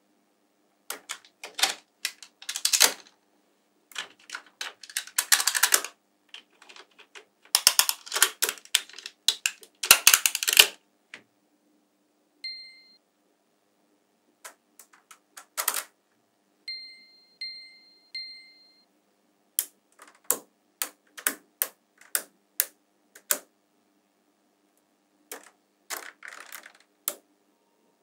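Small neodymium magnet balls clicking and clattering as sheets of them are snapped onto a magnet-ball model, in bursts of sharp clicks with pauses between. A short high ding sounds once about twelve seconds in and three times in quick succession around seventeen seconds.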